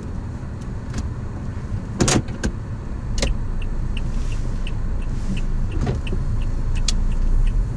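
Inside a car's cabin, the engine runs steadily and grows slightly louder as the car pulls away from the curb, with the turn-signal indicator ticking evenly from about halfway through. A couple of sharper clicks come about two and three seconds in.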